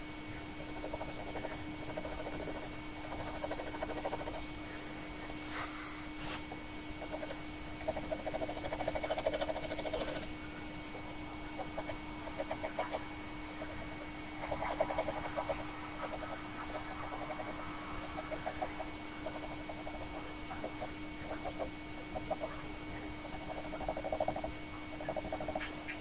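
Fountain pen nib scratching across paper in quick hatching strokes, in runs of rapid scratches separated by short pauses. A faint steady hum runs underneath.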